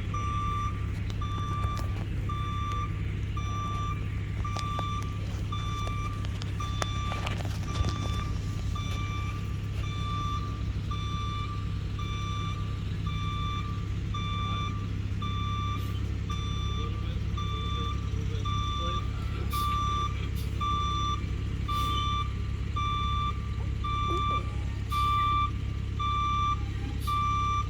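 Backup alarm of a heavy work vehicle beeping steadily, about one beep a second, over the low hum of its running engine, with a few scattered clicks.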